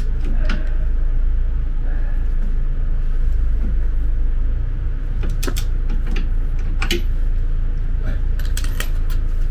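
Front caster fork and wheel of an electric wheelchair being rocked and turned by hand, giving a few scattered metallic clicks and knocks over a steady low hum.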